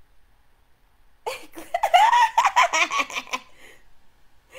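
A woman laughing out loud for about two seconds, starting about a second in.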